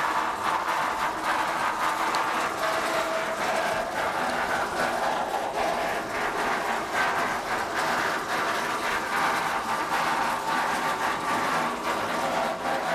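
Turbo-Max 6035 feeder wagon's PTO-driven reel mixer running, its roller chains and sprockets rattling in a steady mechanical clatter.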